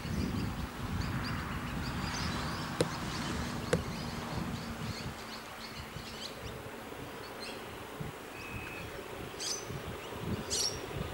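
Wind buffeting the microphone, with a faint steady hum that fades out about halfway and two sharp clicks around three and four seconds in. Birds chirp near the end.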